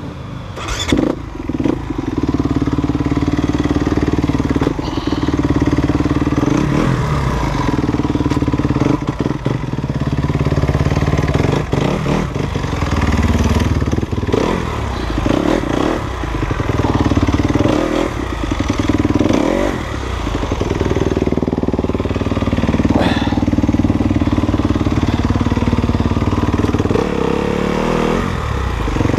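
Enduro dirt bike engine running at low revs, rising and falling with the throttle on a rocky descent, with occasional knocks as the bike hits rocks.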